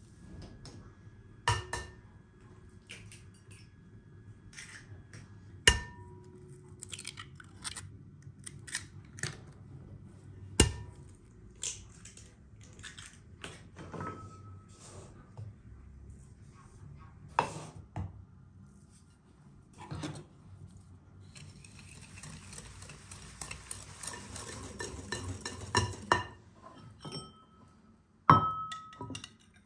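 Kitchen utensils knocking and clinking against glass and ceramic bowls, several clinks ringing briefly. Partway through comes a few seconds of rapid wire-whisk beating of eggs in a glass bowl.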